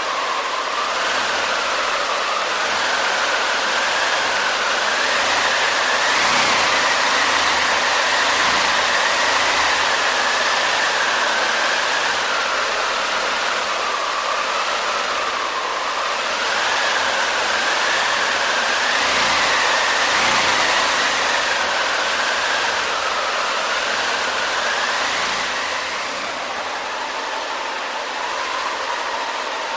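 Wind sound effect: a steady rushing gust with a whistling howl that slowly rises and falls in pitch, swelling a little in the middle and easing near the end.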